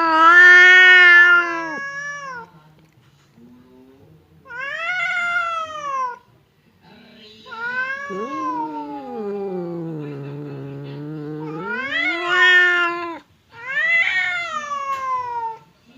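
Domestic cats yowling at each other in a hostile standoff: a series of long, drawn-out caterwauls, one sinking into a low moan about ten seconds in before rising again, the warning calls of cats squaring up to fight.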